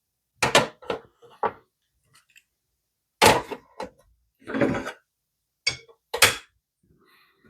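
A series of separate knocks and clatters, about seven in all, as tools and hard objects are handled and set down on a bench. A couple of the impacts carry a short rattle or ring.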